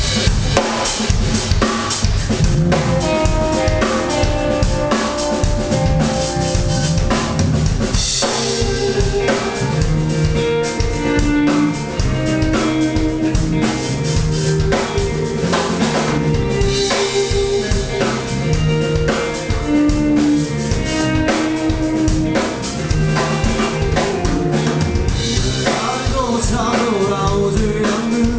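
Live rock band playing an instrumental passage, the drum kit to the fore with kick, snare and cymbal crashes over sustained bass and other pitched instrument notes.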